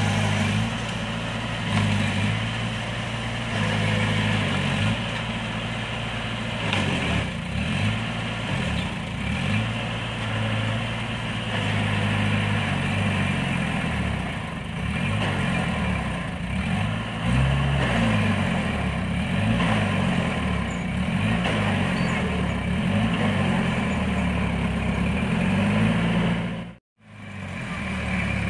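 Diesel engines of a bogged-down dump truck and a small crawler bulldozer pushing it from behind, running and revving, their pitch rising and falling. The sound cuts out briefly near the end.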